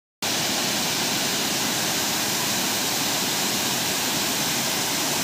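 Water pouring down a concrete dam spillway into the pool below: a steady, even rushing that starts just after a moment's gap.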